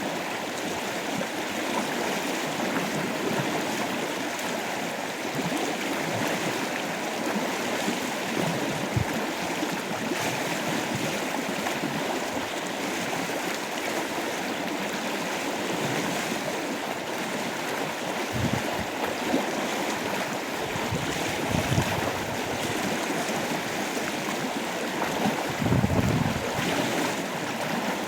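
River water rushing steadily, with a few low rumbles in the second half.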